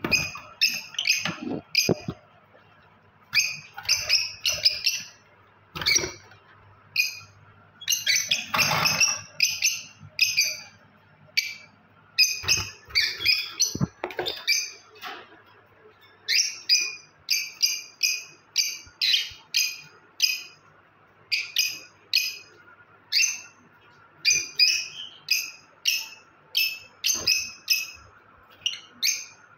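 Lovebird giving repeated short, shrill chirps, about one to two a second in runs broken by brief pauses.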